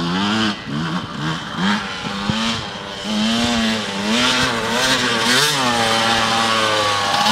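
Yamaha YZ125 single-cylinder two-stroke dirt bike engine revving up and down in quick rises and falls, then louder and held at steadier, higher revs from about three seconds in as the bike comes closer.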